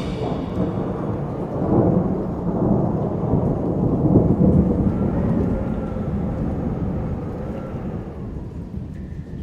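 Designed horror sound effect: a deep, thunder-like rumble that starts abruptly, swells over the first few seconds and slowly dies away.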